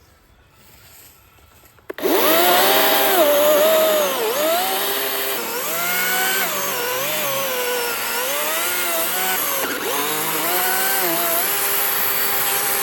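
A battery-powered chainsaw starts up about two seconds in and cuts into wood, its motor whine dipping in pitch under load and picking back up again and again.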